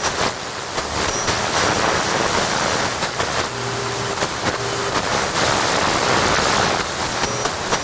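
Television being tuned between channels: a steady rush of static hiss, broken by a few quick changes, with brief steady tones from passing signals around the middle.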